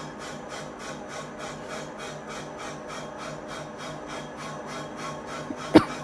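CNC vertical alloy wheel repair lathe cutting the face of an alloy wheel: a steady rasping pulsing about three to four times a second as the wheel turns under the cutting tool. A single sharp click near the end.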